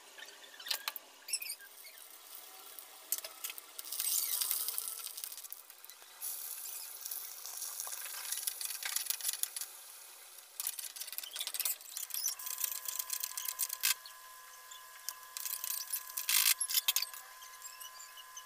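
Hot oil sizzling in an aluminium kadai as spices and chopped onions fry, with crackling pops and a steel ladle scraping and stirring against the pan.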